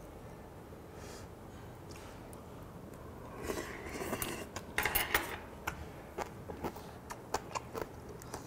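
A noisy, airy slurp from a spoonful of hot soft tofu stew, followed by a quick run of light clicks as a metal spoon knocks and scrapes against the stone pot.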